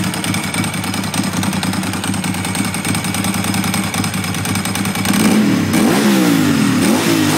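A 2002 Ducati 748's 90-degree V-twin running loudly through Termignoni exhausts, idling steadily and then revved several quick times from about five seconds in, the pitch rising and falling with each blip.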